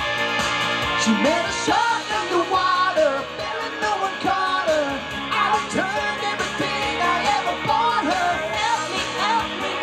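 Singing over a pop-rock backing track, the quick-fire chorus of a cover song.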